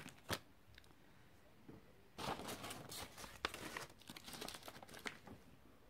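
Paper and card being handled: one sharp click just after the start, a quiet second or two, then faint rustling and light taps of cards being shuffled for about three seconds.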